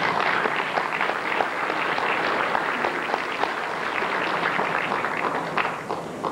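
Audience applauding: a dense patter of many hands clapping, thinning out near the end.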